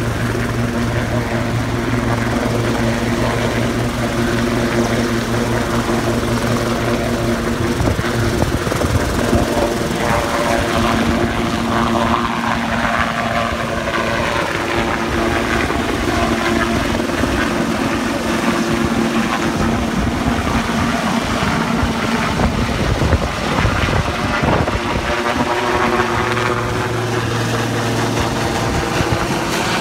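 Ambulance helicopter lifting off and flying overhead: a steady rotor and turbine sound at first, turning to a rougher rotor wash about eight seconds in with its pitch sliding as it climbs and passes, then settling to a steady tone again near the end.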